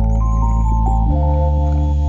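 Background music: sustained synthesizer or organ chords over a deep bass note, with the chord and bass changing about a second in.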